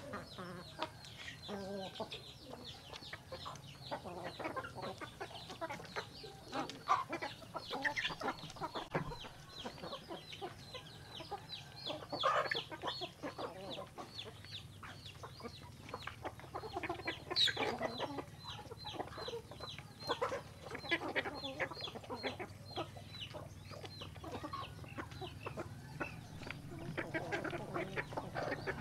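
A flock of chickens clucking softly as they feed, with a dense patter of quick taps from beaks pecking grain out of a bamboo trough. One louder, sharper sound stands out about two-thirds of the way through.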